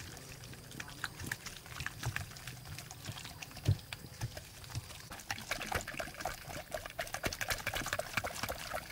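A bundle of bamboo skewers repeatedly jabbed into the skin of boiled pork belly, pricking it so it crisps when fried: a string of small wet clicks and taps, sparse at first and quick and dense in the second half, with one heavier knock about midway.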